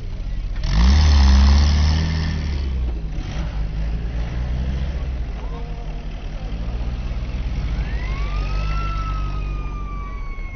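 WWII jeep engine running as the vehicle drives slowly past, briefly revving up and getting louder about a second in. Near the end a high whistle-like tone rises, then slowly falls.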